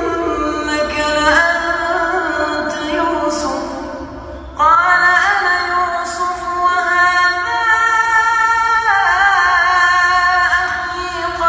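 A young man's voice reciting the Quran in melodic tajwid style, drawing out long, ornamented notes. It tails off around four seconds in, then comes back louder on a new long phrase.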